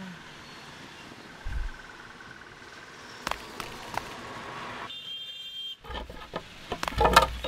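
Wooden planks being handled and stacked: a dull thump, a few sharp knocks of wood on wood, then a loud clatter of boards near the end.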